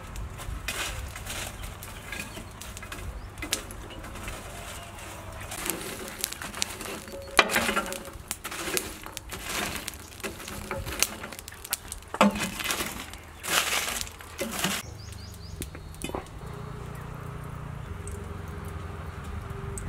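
Burning charcoal being raked and stirred with a long stick in a steel barbecue box: a run of irregular scrapes, rustles and sharp knocks of coals against the stick and the metal grill. About fifteen seconds in the raking stops and only a quieter steady background is left.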